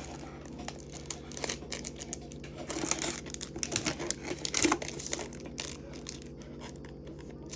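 Foil wrapper of a Pokémon card booster pack crinkling and cards being handled: an irregular run of small crackles and light clicks, busiest in the middle.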